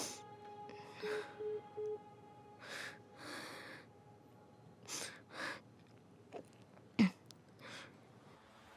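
A woman's heavy, uneven breaths and gasps, muffled by a cloth held over her mouth and nose, in pairs a few seconds apart with a sharper catch of breath about seven seconds in. Three short electronic beeps sound about a second in.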